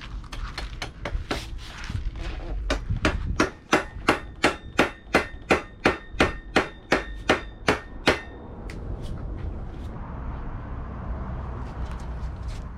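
A hammer striking a metal BMX bike part: a steady run of about fifteen even blows, roughly three a second, each with a short metallic ring, between fainter taps and clicks.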